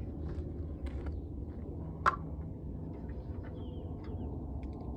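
Light clicks and handling of plastic car turn signal units being fitted, with one sharp snap about two seconds in, over a low steady background rumble.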